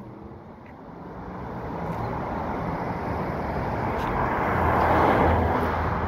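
A car driving past on the street: its tyre and engine noise swells gradually, is loudest about five seconds in, then eases off slightly.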